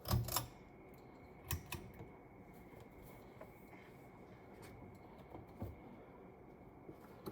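Multimeter test probes clicking and tapping against fan wiring during a continuity check: a knock at the start, then a few scattered small clicks, over a faint steady high-pitched tone.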